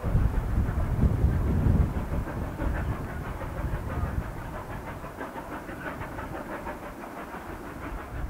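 Cumbres & Toltec narrow-gauge steam train running at a distance. A low rumble is heaviest in the first two seconds, then gives way to a steady rush with fast clicking of the wheels over the rails.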